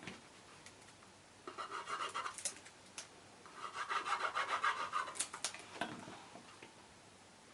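Card stock being rubbed firmly by hand to press glued pieces down, in two scratchy bursts, a short one about one and a half seconds in and a longer one from about three and a half to six seconds in.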